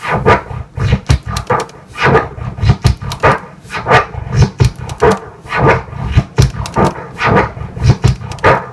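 Turntable scratching of a kick-and-snare drum sample: the record is rocked forward and back while the crossfader clicks chop each stroke into short cuts, a fast run of several pitch-bending cuts a second. This is the three-click orbit forward with three tear pauses on the way back, eight sounds to each back-and-forth.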